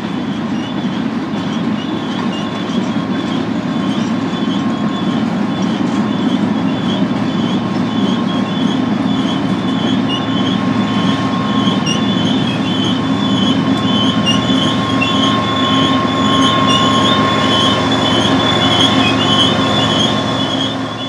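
BNSF freight train cars rolling past: a steady rumble of wheels on rail, with a high wheel squeal broken into rapid repeated chirps and a steady lower whine.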